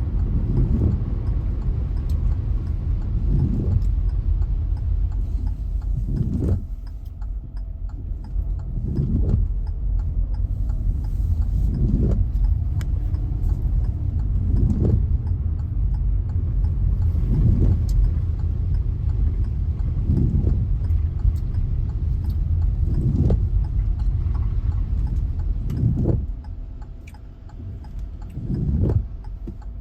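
A car driving: a steady low rumble, with a regular swish about once every three seconds.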